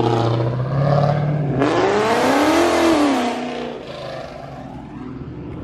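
A car accelerating hard away down the street: about a second and a half in the exhaust comes in loudly, the engine pitch climbs and then falls as it lets off, and the sound fades as the car pulls away.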